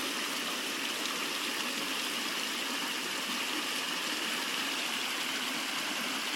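River water flowing with a steady, unbroken rush.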